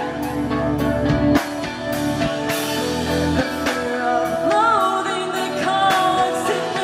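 A rock band playing live: electric guitars and drum kit, with a voice singing from about the middle onward.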